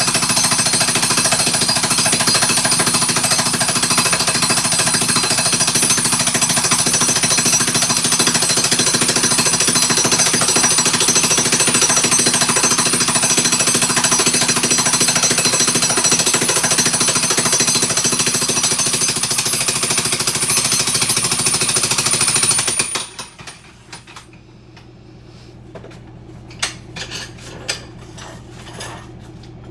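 Jackhammer running steadily, breaking up floor tile, then cutting off suddenly about three quarters of the way through. After it stops, a low hum and a few scattered clinks remain.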